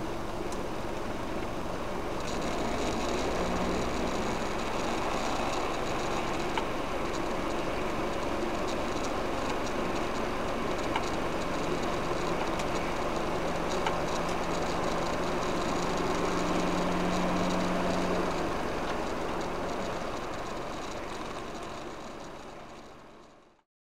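Road and engine noise inside a car's cabin driving on a wet motorway, with a steady low drone that comes and goes; the sound fades out near the end.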